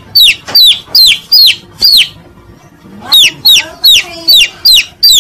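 Chicken distress calls: loud, sharp peeps, each falling steeply in pitch, about two and a half a second, with a pause of about a second near the middle. This is a lure call for drawing in mongooses.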